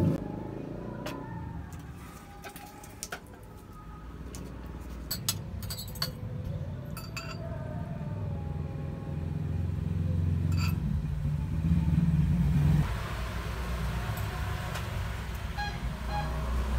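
Metal spoon and fork clinking a few times against a glass bowl and plate while eating, over a steady low rumble that grows louder about twelve seconds in.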